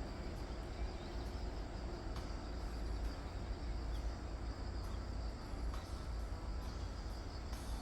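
Outdoor ambience: a steady low rumble with faint, steady insect chirring.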